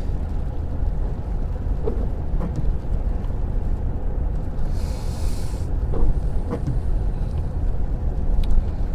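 Car driving at speed on a wet road, heard inside the cabin: a steady low rumble of tyre and road noise, with a brief hiss about halfway through.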